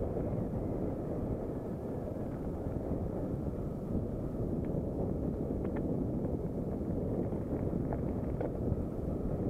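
Wind buffeting the camera microphone on a mountain bike descending a gravel dirt track, over a steady low rumble of the tyres on the ground, with a few faint clicks and rattles.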